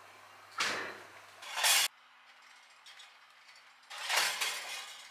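A refrigerator door being shut, with two short clattering knocks. Then the faint steady hum of an electric fan oven and the scrape of a glass baking dish being pulled out along the oven's wire rack.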